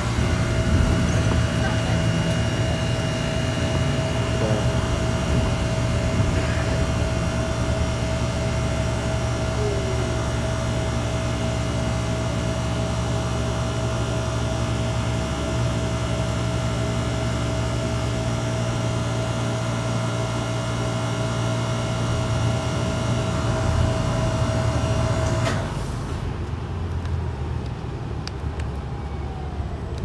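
Inside a city bus: engine and road rumble with a steady high-pitched whine over it, one of the bus's weird noises. About 25 seconds in, the whine cuts off suddenly and the overall noise drops, while the low rumble carries on.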